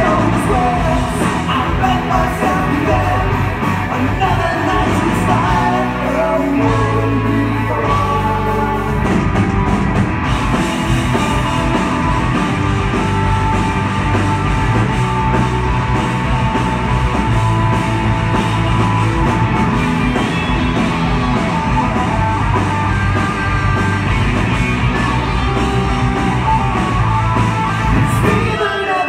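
Live rock band playing loud: electric guitars, bass and drum kit, with vocals over the top.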